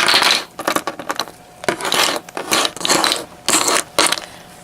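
Small hard containers of glitter clattering and knocking together as they are handled and rummaged through, in about five short bursts.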